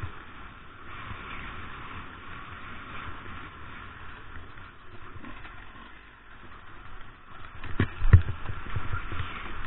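On-board sound of a two-stroke enduro motorcycle riding off-road, the engine running under a steady rush of noise, with a cluster of sharp knocks and thumps about eight seconds in.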